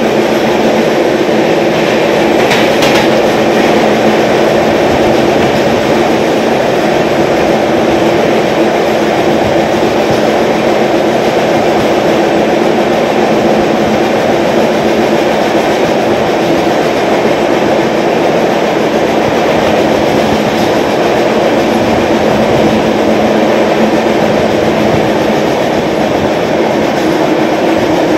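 Express passenger train running at speed, heard from an open coach doorway: a loud, steady rush and rumble of wheels on rails with a steady low hum underneath.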